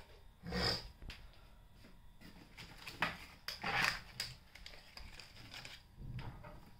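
Rustling and handling noises as plastic ink bottles are lifted out of a cardboard printer box's foam packing and set down: short scuffs and rustles about half a second in and again around three to four seconds in, over a faint steady high whine.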